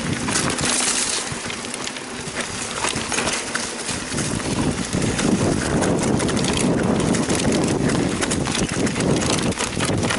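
Mountain bike rolling down a dirt trail: tyres crunching over gravel and rocks, with the bike rattling in many quick small clicks and wind on the microphone. The sound is a little quieter for a couple of seconds early on and then picks up again.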